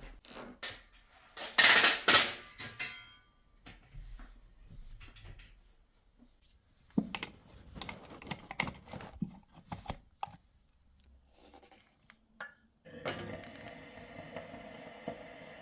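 Dishes and metal utensils being handled: a loud, ringing clatter about two seconds in, then lighter clinks and taps. Near the end a steady hiss with a faint hum starts.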